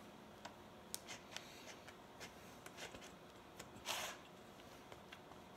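Faint rubbing and scattered soft clicks of hands pressing dough into a metal springform pan, with one brief louder rustle about four seconds in.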